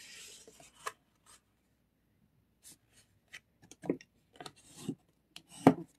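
White cardstock being handled and folded into a card base: soft paper rubbing and rustling, then scattered light clicks and taps of paper and tools on the craft mat, with one sharper click near the end.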